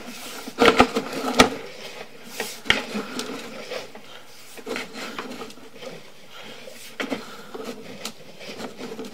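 A drain inspection camera's push cable being fed by hand along a septic drain field line, rubbing and rattling. A few sharp knocks come in the first second and a half, then lighter irregular ticks.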